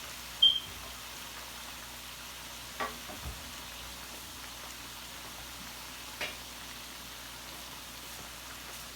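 Curry chicken back sizzling steadily as it fries in the pot. A short high squeak comes about half a second in, and a few faint clicks follow later.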